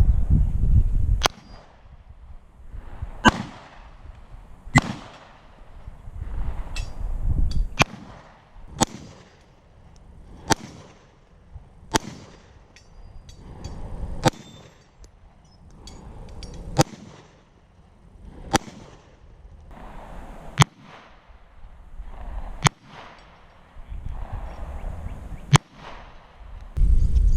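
Walther PPQ 9mm pistol fired in slow, single aimed shots, about a dozen sharp cracks spaced one and a half to three seconds apart, with a low rumbling noise between some of them.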